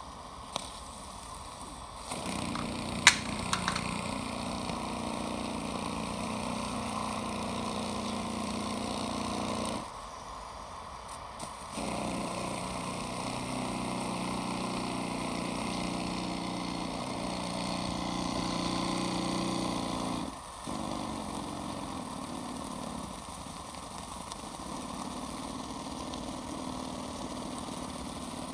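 Microcosm M36 5.4cc two-cylinder oscillating steam engine running on steam, picking up to a steady fast hum about two seconds in as the throttle is opened. It drops back for about two seconds near the middle and breaks off once more briefly later, then keeps running. There are a few sharp clicks near the start.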